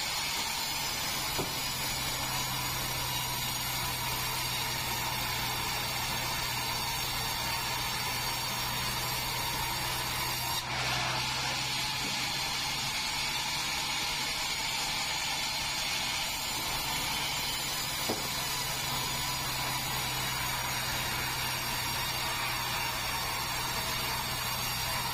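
Sawmill bandsaw cutting through a large meranti log: a steady high whine from the blade over the low hum of the machine, with a brief change in the sound about ten seconds in.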